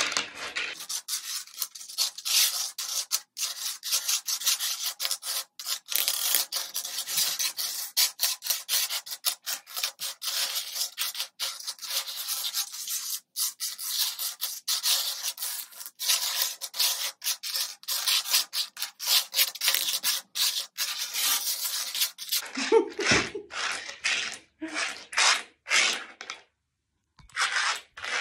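Turkish lira coins slid and scraped by hand across a wooden tabletop as they are sorted and counted, a dense run of rubbing and clinking. About 22 seconds in it thins into separate sweeps with short gaps.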